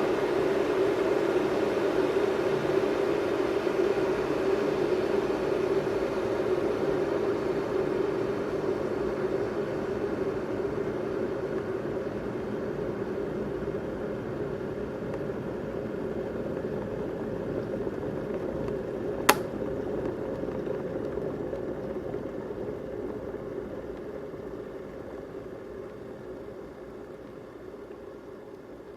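Electric kettle rumbling and bubbling as the water comes to the boil, slowly getting quieter. Its switch clicks off about two-thirds of the way through, and the bubbling then dies away.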